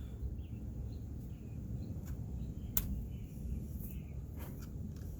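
Quiet outdoor background: a steady low rumble with faint, scattered high chirps and a few light clicks, one sharper click near the middle.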